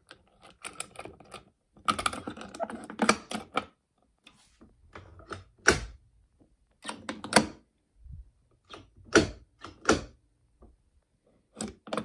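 Fire-Lite fire alarm pull station being worked by hand: the reset key rattling and turning in its lock and the pull handle snapping and latching, a cluster of rattling clicks at first, then sharp single clacks every second or two.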